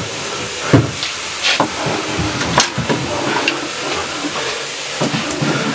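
Steady hiss of a vacuum cleaner running, with several knocks and clatters of hand tools being handled at a wall rack and a hammer taken down. The loudest knock comes about a second in.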